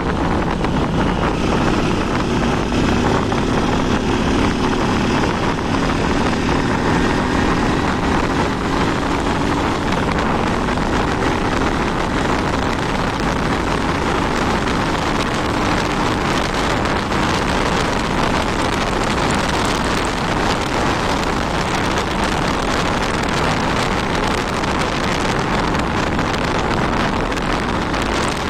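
Honda 160 motorcycle's single-cylinder engine running on the move, largely buried under heavy wind noise on the microphone. The engine's tone is plainest in the first dozen seconds, where it drifts a little in pitch.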